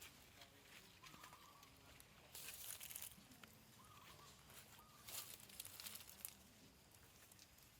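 Faint rustling, twice, with a few faint short chirping animal calls.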